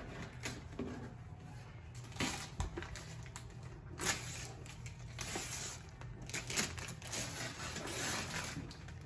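Gold gift-wrapping paper being ripped and crumpled off a large box, in a run of irregular rustling tears with several louder rips, and tissue paper rustling near the end.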